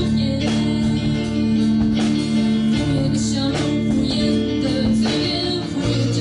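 Live pop-rock band playing with drums, bass, electric guitars and keyboard, and a female vocalist singing in Mandarin over them.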